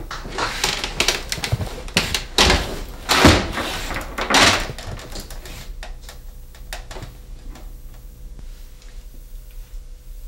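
Door being opened and closed as someone comes in and moves about: a flurry of clicks and knocks with a few louder noisy thumps in the first half, then only scattered clicks.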